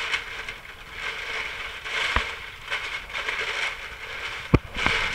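Sheets of packing paper crinkling and rustling as they are pulled out of a box and crumpled, with two sharp knocks, one about two seconds in and one near the end.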